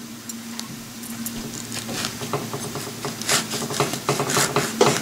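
Kitchen knife slicing through a halved pink grapefruit on a wooden cutting board. A run of small wet crackles and clicks from the blade cutting the flesh and tapping the board grows busier after about two seconds.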